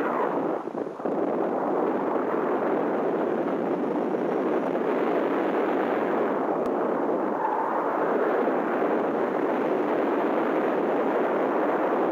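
Airflow buffeting the microphone of a camera mounted on a hang glider in flight: a loud, steady rush of wind noise that dips briefly about a second in.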